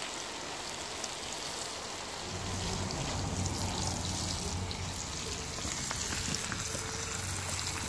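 Porgy frying in hot oil in a pan, a steady sizzle. A low hum joins about two seconds in.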